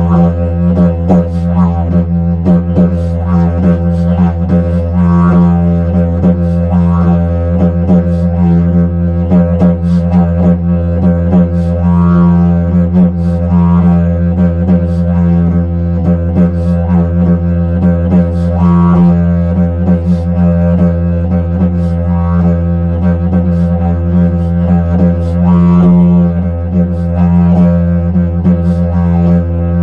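Didgeridoo played in a rhythmic groove: a steady, unbroken low drone with overtones that pulse and sweep in a repeating pattern.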